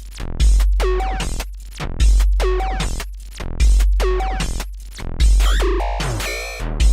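Electronic intro music: a deep bass note hits about every second and a half under falling synth sweeps.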